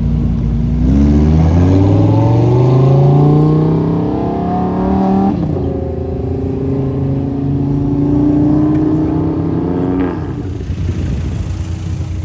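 A performance car's engine accelerating away hard. The pitch climbs steadily, drops sharply on an upshift about five seconds in, and climbs again more slowly. About ten seconds in the throttle lifts and the engine falls to a lower rumble.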